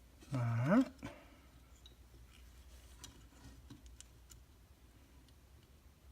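A short vocal sound rising in pitch, about half a second long, near the start. It is followed by faint scattered clicks of small plastic parts and cable ties being handled.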